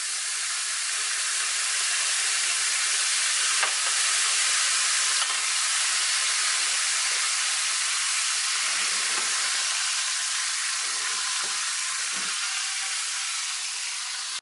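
Hot grease sizzling steadily in a cast-iron skillet, bubbling after pork chops were pan-fried in it.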